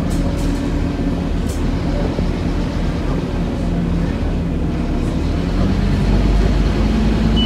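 Scania OmniCity single-deck bus heard from inside the passenger saloon: steady drone of the engine and drivetrain with road noise, swelling slightly about six seconds in. There are a couple of faint brief clicks or rattles near the start.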